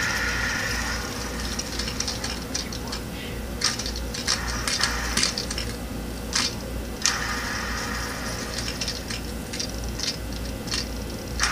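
Handheld plastic LED fidget spinner flicked into a spin and whirring as it slows, with light clicks and taps of fingers handling it in between. It is flicked again about seven seconds in and once more near the end, each flick starting a fresh whir.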